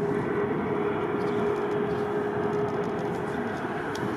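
Jet noise from the Airbus A380-842's four Rolls-Royce Trent 900 turbofans as the airliner flies low toward the listener: a steady rumble with one held humming tone over it.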